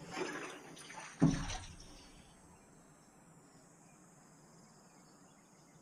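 Water splashing and running for about a second, cut by a single loud thump, then fading to near silence.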